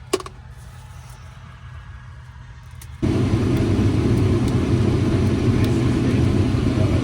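A heavy farm machine's engine running steadily with a deep hum. It comes in abruptly about three seconds in, after a quiet stretch that holds a single sharp click.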